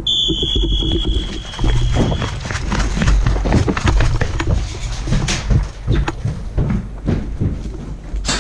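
Irregular knocks and clicks of a player moving with gear on an airsoft field, over a constant low rumble. A steady high whistle-like tone sounds for about the first two seconds.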